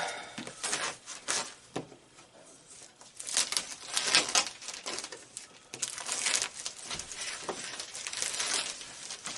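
Product packaging being opened by hand: irregular crinkling and rustling with some tearing and small knocks, coming in clusters with a short lull about two seconds in.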